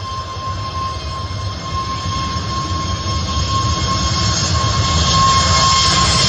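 Twin CFM LEAP-1A turbofans of an Airbus A320neo running as the airliner moves onto the runway: a steady high whine over a low rumble, with a hiss that grows and the whole sound getting louder throughout.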